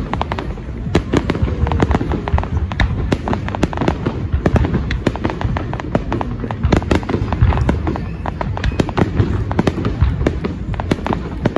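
Aerial fireworks display: a rapid, unbroken barrage of shell bursts and crackling over a continuous low rumble.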